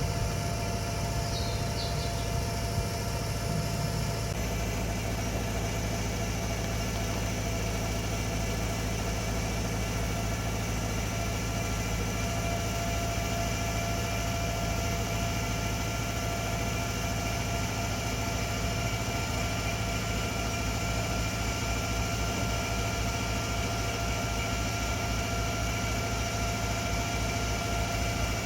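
Engine of a boat-lifting machine running steadily with a constant whine, its note changing about four seconds in.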